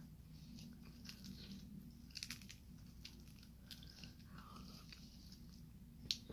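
A person chewing a mouthful of samosa, faint, with a few soft mouth clicks.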